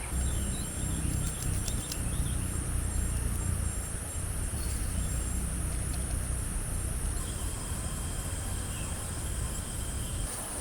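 Insects droning steadily at a high pitch over a low rumble that is strongest in the first part and eases off after about seven seconds.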